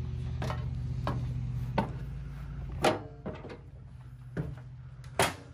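Clicks and knocks from an RV's entry screen door being opened and footsteps up the entry steps. A steady low hum drops away about halfway through, and the sharpest knock comes near the end.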